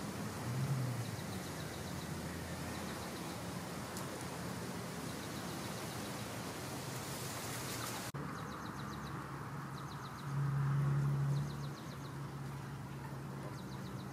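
A steady low engine-like hum, which swells louder for about a second and a half near the two-thirds mark. Short bursts of rapid high chirps repeat over it, changing character after a sudden break about eight seconds in.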